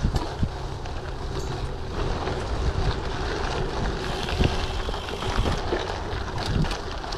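Wind buffeting the action camera's microphone as a Giant TCX gravel bike on 38 mm WTB Riddler tyres is ridden over a dirt trail, with tyre noise and frequent short clicks and rattles from the bike on rough ground.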